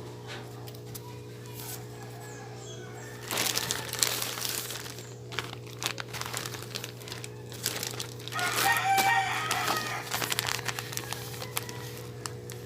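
Plastic packaging crinkling and rustling as supplies are unboxed, in several bursts. A rooster crows once about eight and a half seconds in, over a steady low hum.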